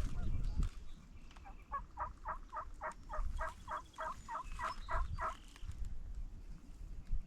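Wild turkey yelping: a run of about a dozen evenly spaced yelps, roughly three a second, after a brief rustle at the start.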